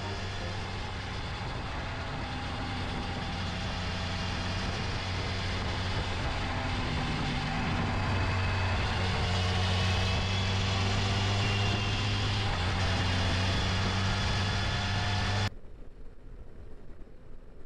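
BMW S 1000 XR's inline-four engine running at a steady cruise with road noise, its note holding a steady pitch and gradually getting louder. About fifteen seconds in, the sound cuts off abruptly to a much quieter background.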